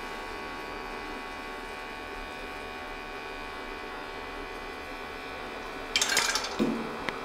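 Kostrzewa pellet boiler's feed system humming steadily. About six seconds in comes a sudden burst of rattling and clattering lasting about a second: wood pellets dropping through the flexible feed hose into the burner.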